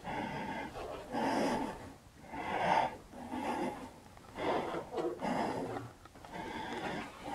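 A person breathing heavily close to the microphone, with about six loud, noisy breaths spaced roughly a second apart.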